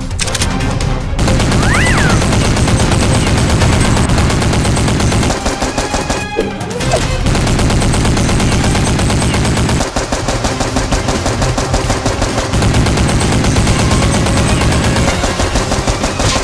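Sustained rapid automatic gunfire, a dense run of shots with a brief break about six seconds in.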